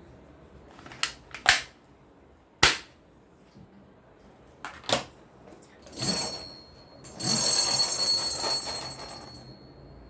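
Toy gun making several sharp clicks and snaps, then a noisy electronic shooting sound effect of about three seconds with a steady high tone running through it.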